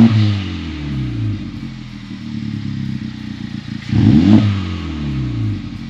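2018 Honda Civic Type R (FK8) turbocharged four-cylinder through an Apex'i N1-X Evolution stainless rear exhaust section with titanium tips, revved quickly twice from idle: a rev peaking at the start and dropping back to idle, then a second quick rev about four seconds in.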